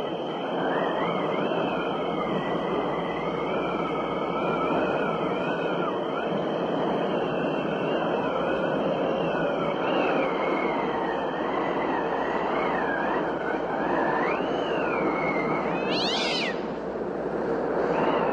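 Horror sound-effect track of wailing, terrified screams with slowly wavering pitch over a steady noisy background. A short, sharp shriek cuts through near the end.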